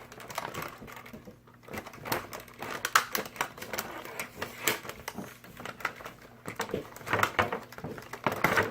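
Plastic toy parts and packaging being handled and cut free: a run of irregular sharp clicks and clacks, in denser clusters about 3 s in and near the end.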